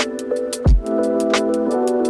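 Background electronic music with a steady beat: a kick drum with hi-hats over sustained synth chords.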